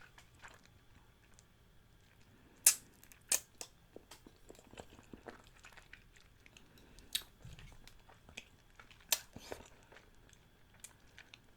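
Close-miked chewing with the mouth a little open: quiet, scattered wet smacks and clicks, a few of them sharper and louder.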